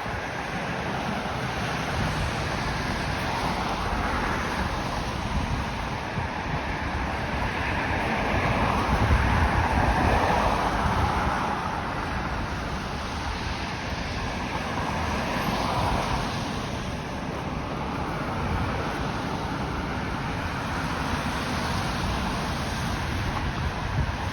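Steady city traffic noise from passing cars, swelling loudest about ten seconds in and again around sixteen seconds.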